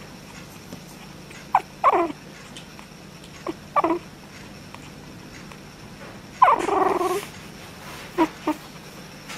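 Japanese Chin puppy making short, whiny grumbles that fall in pitch, the sound called its purr. There are two pairs of brief calls, a longer call about two-thirds of the way through, and two quick ones near the end.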